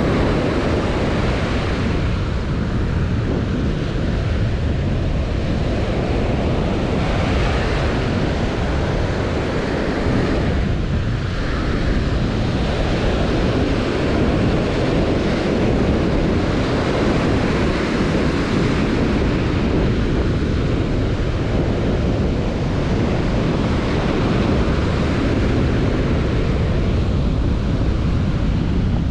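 Small waves breaking and washing up a sandy beach in a steady surf wash, with wind rumbling on the microphone.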